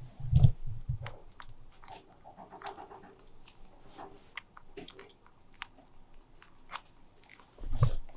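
A guinea pig chewing, with crisp crunching clicks scattered through. Low thumps sound about half a second in and again near the end.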